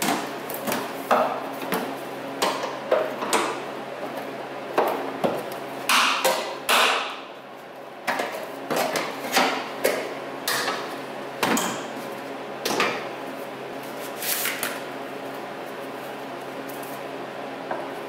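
Irregular clicks, knocks and scrapes of a flathead screwdriver prying at a hood gas strut's end fittings and retaining clip, with the strut clacking against its mount as it is worked loose.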